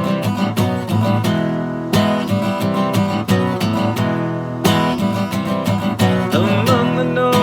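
Acoustic guitar strummed in a steady rhythm, playing the song's intro chords.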